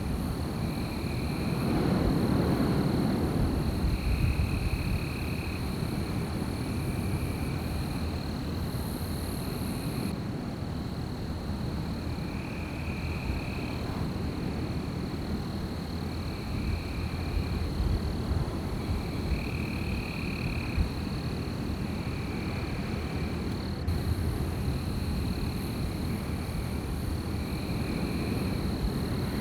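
Wind blowing through trees with a low, steady rush that swells briefly a couple of seconds in. Over it runs a steady high drone of night wildlife, with short high trills repeating every second or two.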